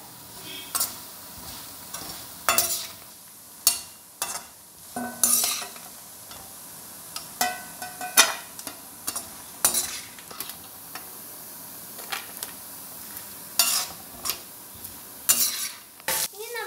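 Chopped coconut pieces frying in oil in a pan with a steady sizzle, stirred with a metal spoon that scrapes and clicks against the pan at irregular moments.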